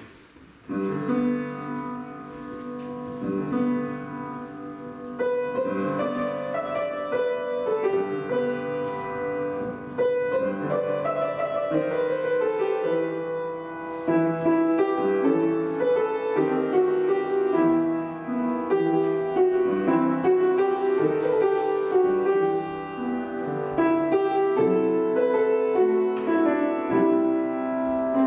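Piano playing a classical ballet-class accompaniment for a barre exercise, starting about a second in.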